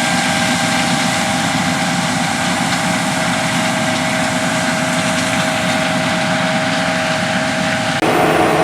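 Heavy harvest machinery running steadily in a cornfield (combine and tractor engines), with a steady whine over the engine noise; the sound changes abruptly near the end.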